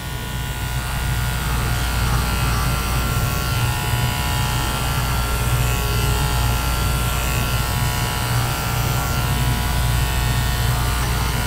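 Electric hair clippers buzzing steadily while cutting through a head of thick, grown-out hair.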